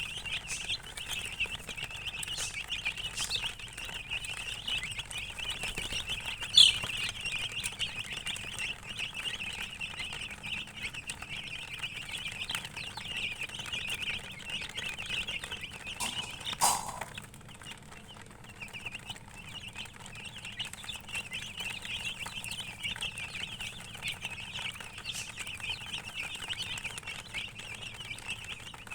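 A brood of baby chicks peeping continuously, many high, short calls overlapping. A sharp click sounds about a quarter of the way in, and a knock near the middle, after which the peeping briefly thins before picking up again.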